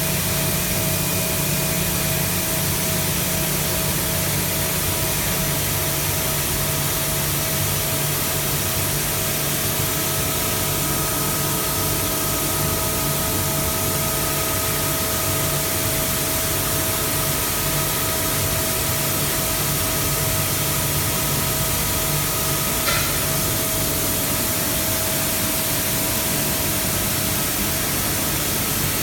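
Mazak five-axis CNC machining center running: a steady hiss with a held whine underneath. A second, higher tone joins about ten seconds in and stops with a sharp click at about 23 seconds.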